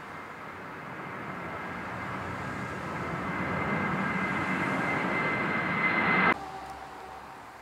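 Twin-engine jet airliner climbing out at takeoff thrust, its engine noise growing steadily louder as it passes overhead, with a steady whine above the rush. About six seconds in it cuts off abruptly, leaving a much quieter, more distant jet engine sound.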